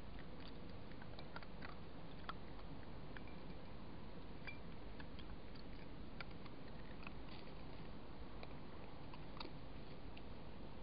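Fox eating from a dish: faint, irregular clicks and crunches of chewing over a steady hiss.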